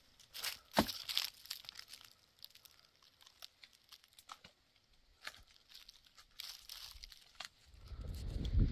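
Dry wood crackling and snapping in irregular clicks as twigs and small branches are broken off a bare tree, with one sharper snap about a second in. A low rumble rises near the end.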